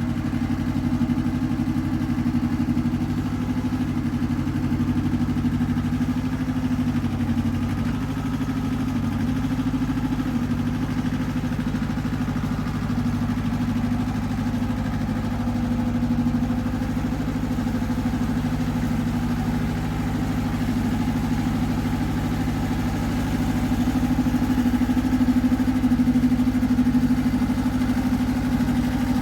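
Iseki TX1300 compact tractor engine running steadily, slightly louder about three quarters of the way through.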